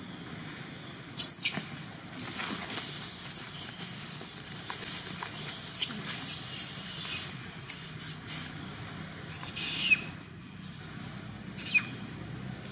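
Long-tailed macaque screaming loud in high-pitched squeals, the distress screams of a monkey under attack. It is a long run of calls starting about a second in, followed by two short squeals near the end.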